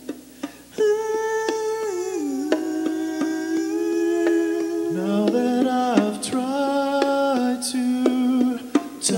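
Male a cappella vocal group singing wordless sustained chords, hummed rather than sung to words, with a short break at the start. A lower voice slides up into a note about five seconds in.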